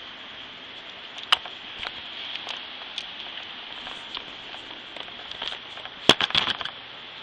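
Handling noise from a handheld camera: scattered clicks and rubs over a steady hiss, with a quick run of sharp clicks about six seconds in.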